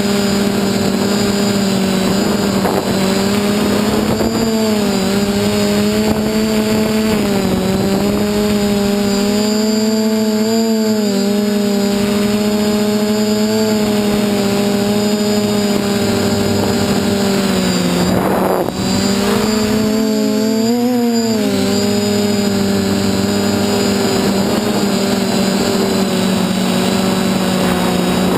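DJI F450 quadcopter's motors and propellers buzzing steadily in flight, a low hum whose pitch wavers slightly with throttle. The pitch dips briefly about 18 seconds in and rises again around 21 seconds.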